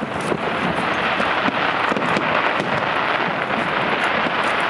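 Aerial fireworks going off: a dense, continuous crackle scattered with many sharp pops as the shells burst.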